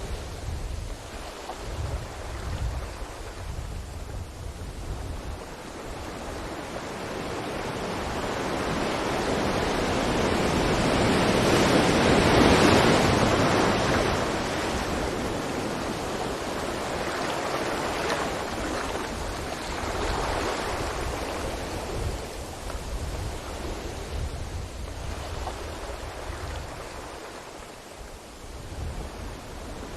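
Ocean waves breaking on a beach: a slow swell of surf that builds to a loud crash about twelve seconds in and then washes back, with a softer wave later on.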